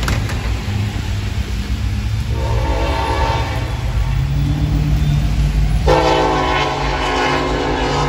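Union Pacific freight locomotive's air horn sounding for a grade crossing: a shorter blast about two and a half seconds in, then a long blast from about six seconds in. A steady low engine rumble runs underneath.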